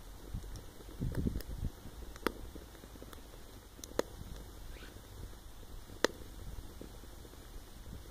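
Stick fire burning in a Silverfire rocket stove: a few sharp pops, the loudest about six seconds in, over an uneven low rumbling.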